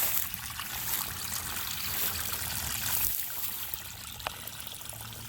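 Water trickling steadily down an eroded gully from the pond's overflow.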